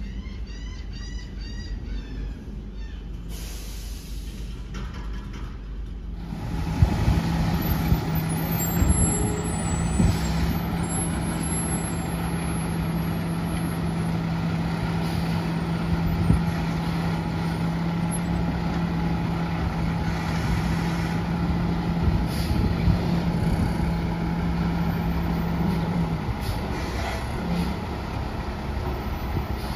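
Front loader garbage truck running close by, with a steady low hum from its engine and hydraulics and a few sharp knocks. It is quieter for the first six seconds, with a run of short high chirps. The hum grows louder about six seconds in and stops near the end.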